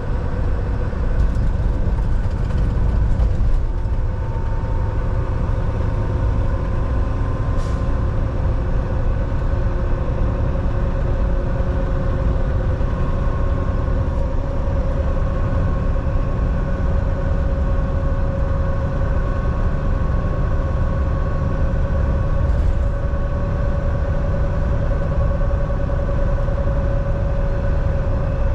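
Semi truck driving along: a steady engine drone and road rumble, with a hum that creeps slightly up in pitch.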